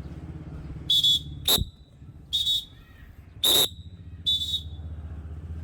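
A hand whistle blown in about five short, sharp blasts, each a shrill trilling tone, with one blast falling quickly in pitch, over a steady low hum.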